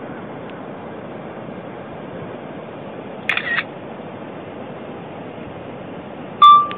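iPhone camera shutter sound going off twice, about three seconds apart, the second one much louder and sharper, over a steady background hiss.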